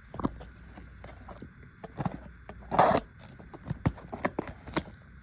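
Hands handling trading cards and cardboard packaging: a run of light clicks, taps and scrapes, with a longer, louder rustling scrape about three seconds in.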